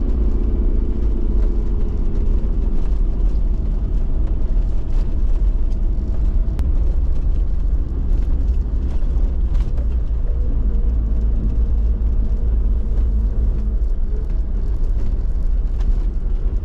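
Toyota LandCruiser Troopcarrier driving, with a steady low engine and road rumble and occasional light clicks.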